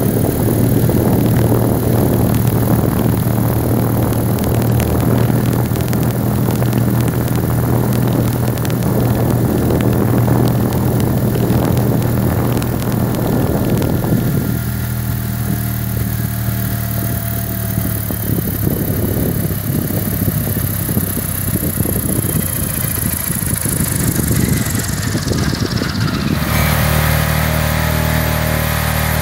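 Electric motor spinning the rotor of a homemade collective-pitch drone test rig: a steady hum with whirring air noise. The air noise eases about halfway through, a high whine falls in pitch over several seconds, and near the end the sound changes suddenly to a different steady hum.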